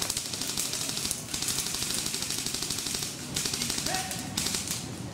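Airsoft electric guns firing full-auto, a fast even rattle of clicks in long bursts of a second or two with short pauses between them.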